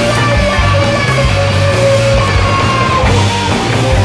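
Loud rock music from a band of electric guitars, bass and drums, with long held guitar notes over a steady bass line.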